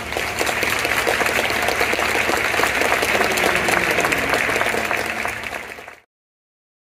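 Crowd clapping, a dense patter of many hands. It fades out near the end and then cuts to silence.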